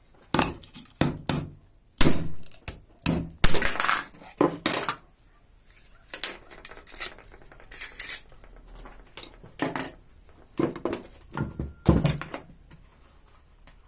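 Irregular clicks, clacks and clinks of a car alarm siren's housing and parts being handled and opened with tools, busiest in the first five seconds and again near the end.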